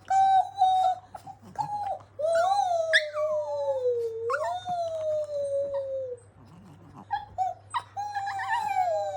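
Small Chihuahua–Pekingese mix dog howling: a few short yelps, then a long howl that slides down in pitch with a brief lift in the middle. After a short pause a second long, falling howl begins near the end.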